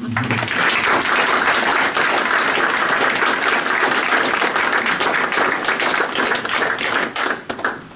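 Small audience clapping, a dense patter of many hands that thins out and dies away about seven seconds in.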